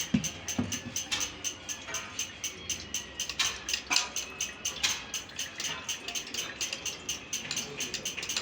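Rapid, slightly uneven metallic clicking, several clicks a second, with a few louder taps among them.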